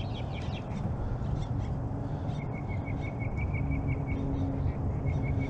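Small birds calling: a few quick chirps at first, then from about halfway a rapid run of short, evenly repeated notes, about six a second, over a steady low rumble.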